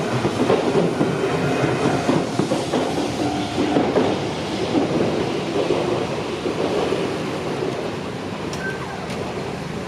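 Shizuoka Railway electric commuter train running along the track, its wheels rumbling and clattering over the rails, easing slightly toward the end.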